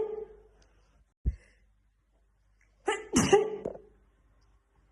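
A woman sneezing in a fit: the end of one sneeze fades at the start, a short low thump comes about a second in, then a full two-part "ah-choo" about three seconds in.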